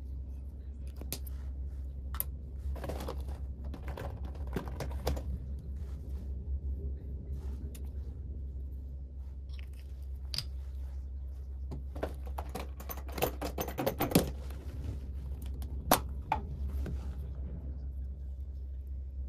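Plastic toiletry bottles, caps and small cosmetics clicking and tapping as they are handled and set down on a stone countertop, in two busy spells and a few single clicks near the end, over a steady low hum.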